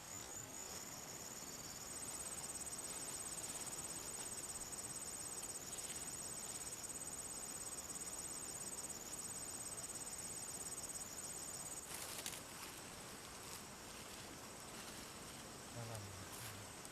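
Faint high-pitched insect chirring, a steady finely pulsing tone that stops suddenly about twelve seconds in, over faint outdoor hiss.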